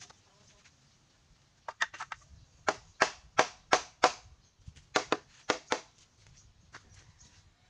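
A run of sharp knocks on bamboo as a bamboo swing frame is put together, about a dozen strikes in two runs with a short pause between, starting a couple of seconds in.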